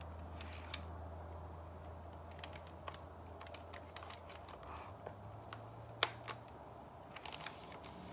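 Faint scattered clicks and taps from handling a plastic airsoft gun, with one sharper click about six seconds in, over a low steady hum.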